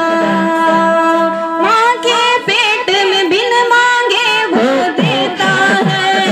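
Devotional Islamic song with zikr chanted behind it. A singer holds long steady notes, then moves into a wavering, ornamented melody over a low chant repeated several times a second.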